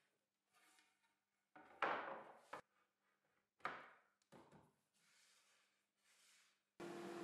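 A few light wooden knocks and scrapes as a plywood circle jig and an MDF board are set on a band saw's table, the loudest about two seconds in. Near the end a steady machine hum comes in suddenly: the shop-built band saw running.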